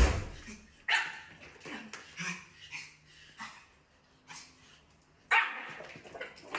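A dog barking: a string of short, sharp barks at uneven intervals, the loudest right at the start, about a second in, and again near the end.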